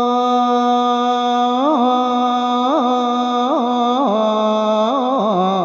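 A monk's voice in Isan thet lae sermon-chanting. A long held note breaks after a couple of seconds into a run of quick ornamental turns, and the pitch steps lower near the end.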